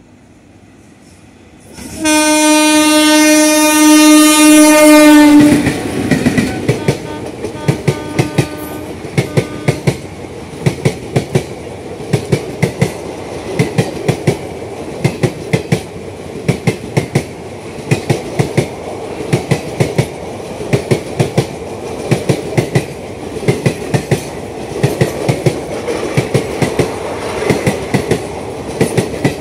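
A locomotive horn sounds one long, loud blast starting about two seconds in and lasting about three and a half seconds. The passing ICF passenger coaches then clatter past close by in a steady clickety-clack, their wheels knocking over the rail joints in quick groups about once a second.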